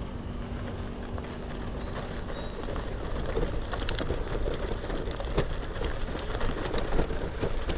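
Zizzo Forte folding bike riding over a rough dirt trail: tyres crunching over dirt and gravel with a low rumble. The bike rattles and knocks, more often in the second half.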